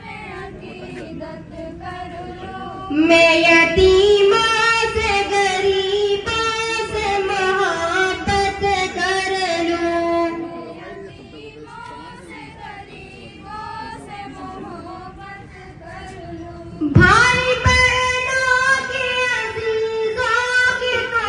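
Young girls' voices singing a prayer with long held notes, louder from about three seconds in to ten, softer for a stretch, then loud again from about seventeen seconds.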